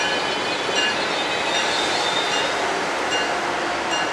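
Electric commuter train pulling into the station with a steady running rumble, its bell ringing in short strokes about once every 0.8 seconds.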